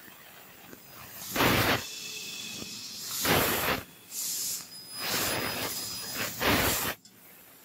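Fiber laser cutting machine cutting round holes in sheet steel, hissing in separate bursts, about four in a row, with a longer burst near the end.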